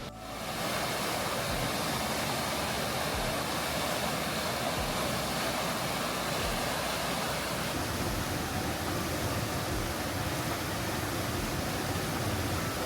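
Rushing water of a cascading mountain stream, a steady, even rush.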